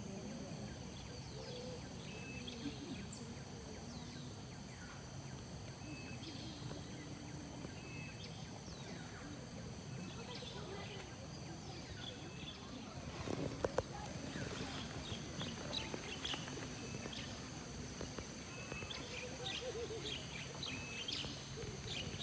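Birds chirping over a steady high-pitched whine, as outdoor ambience at a forest campsite. A couple of sharp knocks come about halfway through.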